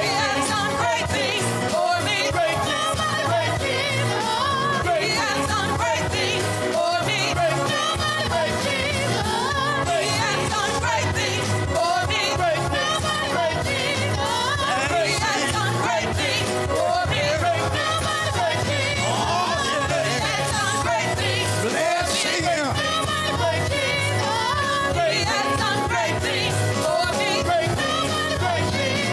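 Gospel worship song: a lead singer and a praise team singing into microphones over instrumental backing with a steady bass line.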